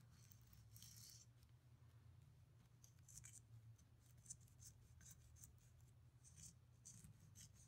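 Faint, scratchy rubbing of cleaning swabs being worked through the firing-pin channel of a Ruger 10/22 bolt, in short strokes, over a low steady hum.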